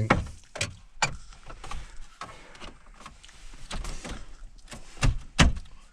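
Plastic dash trim panel being handled and worked into place: scattered clicks, taps and knocks, with two louder knocks near the end.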